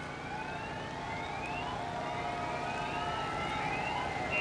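Whistling fireworks: several overlapping whistles, each rising in pitch over about a second.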